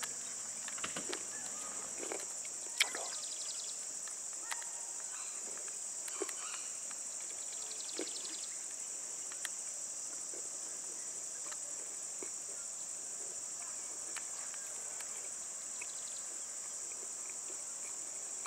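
Steady high-pitched insect chorus, with a few scattered short knocks and clicks, the loudest about three seconds in.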